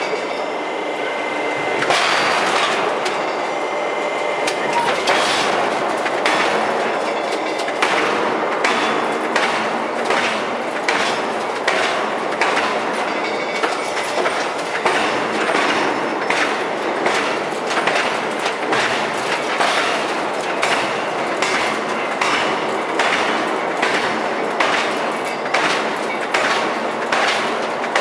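Open-die forging press repeatedly coming down on a red-hot nickel alloy bar, with sharp knocks about once a second over a loud, steady machine noise.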